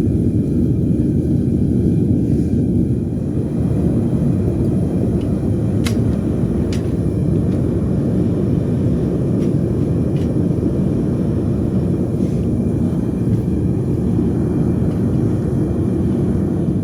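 Furnace burners firing with a steady, even roar. A couple of sharp clicks come through about midway.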